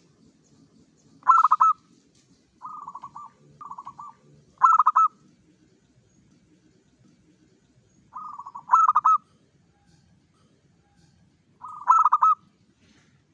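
Zebra dove (perkutut) singing: phrases of softer rolling coos that build into a louder, sharply pulsed coo, repeated every three to four seconds with short pauses between.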